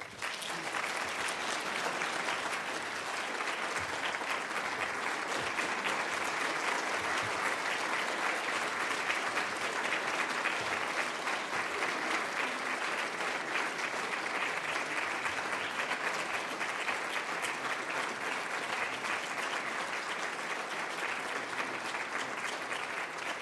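Audience applauding, a dense, steady clapping that starts just after the opening and eases slightly near the end.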